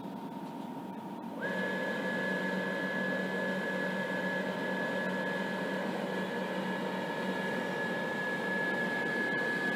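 Belgian IC 2N double-deck push-pull train with its Series 18 electric locomotive humming at the platform. About a second and a half in, the sound steps up into a steady high whine with a low hum underneath as the train powers up and slowly pulls away.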